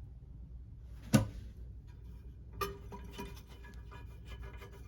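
A single hard knock about a second in, then a smaller knock and a run of light clicks and clinks with a brief ring, as the old toilet tank lever and its mounting nut are handled inside the toilet tank.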